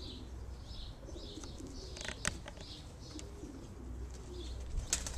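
Racing pigeons cooing, with some higher short notes and a few sharp taps about two seconds in and again near the end.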